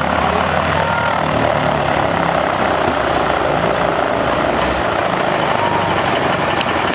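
Boeing Stearman PT-17's seven-cylinder Continental R-670 radial engine running steadily at low power on the ground, with its propeller turning.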